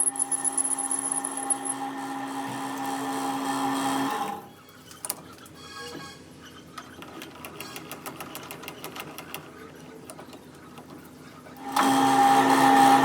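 A workshop machine running with a steady hum, which drops away about four seconds in to leave quieter ticking and clicking, then starts again sharply near the end.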